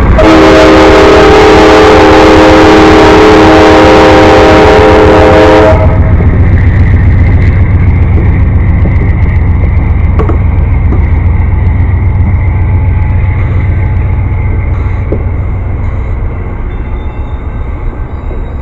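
Amtrak locomotive's multi-chime air horn sounding one long blast of about six seconds, very loud and close, then cutting off. The diesel locomotive's low engine rumble continues and slowly fades.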